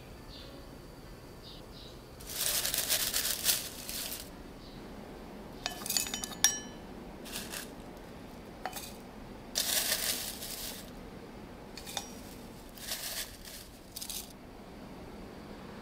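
Dried, shredded tea leaves rustling as they are scooped with a wooden scoop from a glass jar and tipped into a ceramic teapot, in several short bursts. A few light clinks of glass and ceramic come in the middle.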